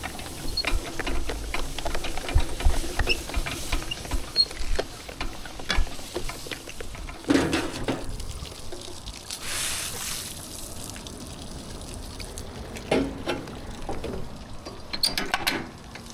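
Water pattering and dripping on concrete, with many scattered clicks and knocks from pressure-washing gear being handled, and a few short louder splashes or bursts of spray.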